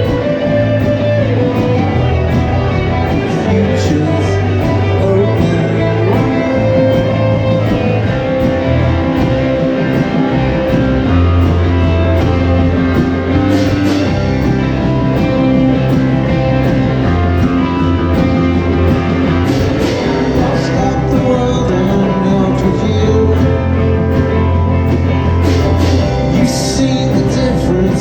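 Live rock band playing a mostly instrumental passage: guitar over steady bass notes and drums.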